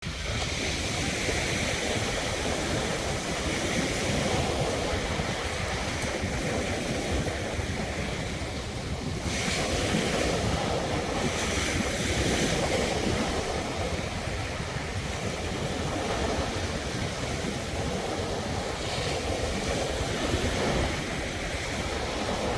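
East Sea surf washing continuously onto the shore, swelling and ebbing every few seconds, with wind buffeting the microphone.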